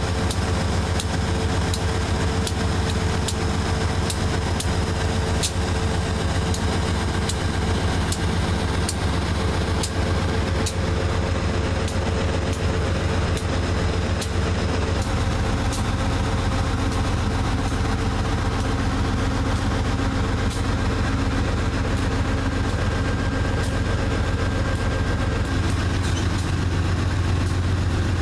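Diesel locomotives of a stopped Amtrak passenger train idling: a steady low engine hum under a held higher tone, with faint regular ticking over roughly the first half. About halfway through the higher tone drops out and the hum shifts, as a different locomotive becomes the nearest.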